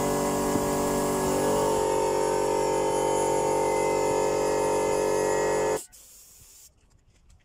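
Compressor-driven paint sprayer running steadily: an even motor hum under the hiss of paint being sprayed, shifting slightly in pitch about a second in. It cuts off abruptly about six seconds in.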